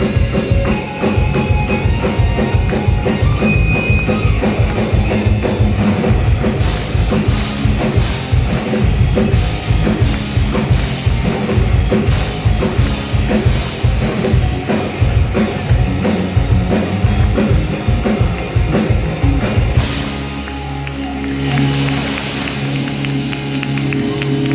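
Live rock band playing loud with a driving drum kit and bass drum. About twenty seconds in the drumming stops and a final chord rings out with a cymbal swell as the song ends.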